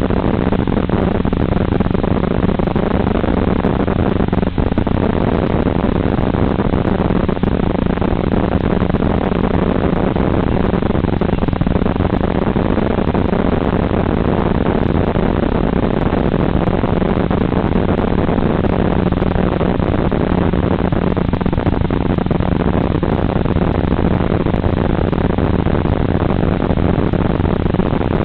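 Steady drone of an RC model aircraft's motor and propeller blended with heavy wind rush, picked up by the onboard FPV camera's microphone in fast level flight. The sound holds the same throughout, with only a brief dip about four and a half seconds in.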